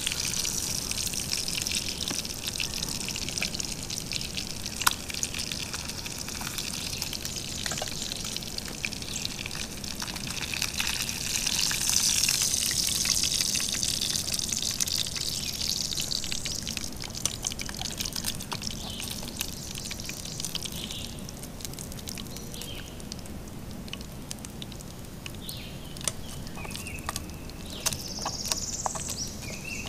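Bacon grease sizzling in a frying pan on a camp stove as catfish fillets finish frying: a steady hiss full of small pops, swelling for a few seconds in the middle.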